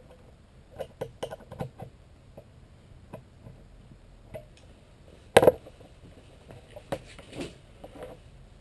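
Pliers bending and curling a narrow strip of thin aluminum sheet, giving scattered small metallic clicks and ticks, with one sharp metallic clank about five seconds in.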